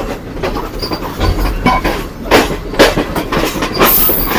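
Passenger-train wheels clattering over the points and crossings of a junction as the train switches onto another line, with irregular heavy knocks and a short high screech near the end.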